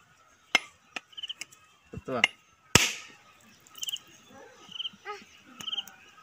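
Long knife blade striking a whole coconut held in the hand, single sharp knocks spaced about half a second to a second apart, the loudest about three seconds in as the shell cracks and the coconut water starts to drip out.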